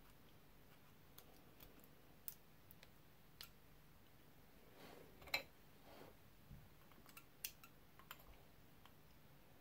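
Scattered small clicks from handling a brass Mul-T-Lock Junior lock cylinder and a pick-type tool, with a soft rustle. The sharpest click comes about halfway through.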